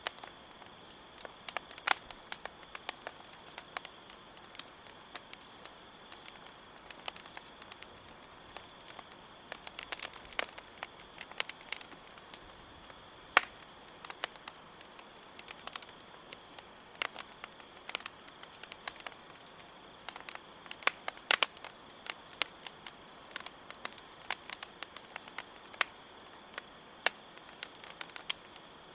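Campfire crackling, with frequent irregular sharp pops and snaps, over a steady high chirring of crickets.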